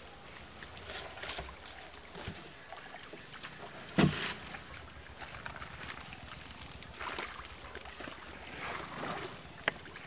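Shallow pond water splashing and sloshing irregularly as a wet cast net full of fish is gathered and hauled in by hand, with one sudden louder sound about four seconds in.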